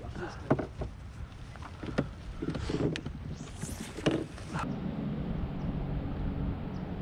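Several light knocks and clicks, then, about four and a half seconds in, a boat motor's steady low hum.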